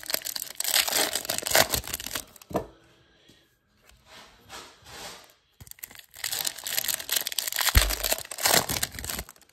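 Foil wrappers of 1999 Topps Chrome card packs being torn open and crinkled by hand, in two spells of dense crackling: one at the start and one from about six seconds in. Quieter shuffling of the cards comes between them.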